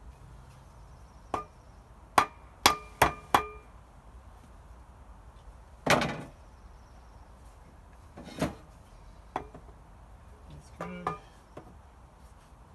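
Hand hammer striking: a few scattered sharp knocks, then four quick blows, each with a short ring, about two to three and a half seconds in, followed by a heavier blow near the middle and more spaced knocks.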